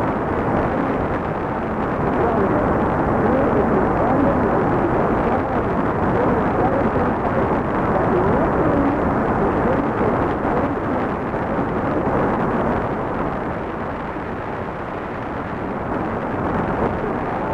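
Shortwave static from a Tecsun PL-380 receiver's speaker tuned to 9670 kHz: a steady rushing hiss with faint wavering traces of the broadcast too weak to make out.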